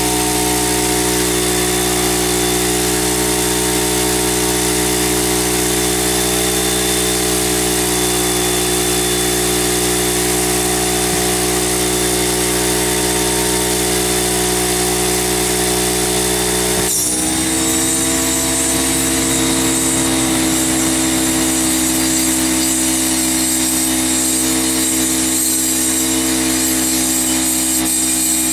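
Workshop air compressor running steadily with a loud motor hum, feeding the air line. About two-thirds of the way through, its tone steps up and a higher hiss grows louder.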